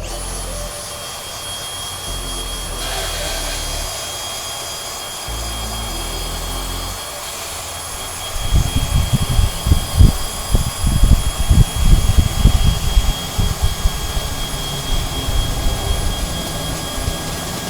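A power tool cutting steel plate, running steadily with a hiss and a high whine, over background music. From about eight seconds in, loud irregular low knocking and rumbling join it.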